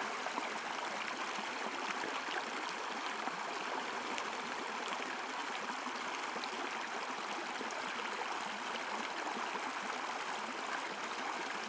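Small shallow creek babbling steadily over a rocky bed.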